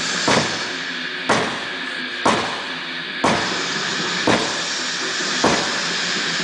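Sledgehammer strikes landing about once a second, seven hits in a row, over a steady background hiss.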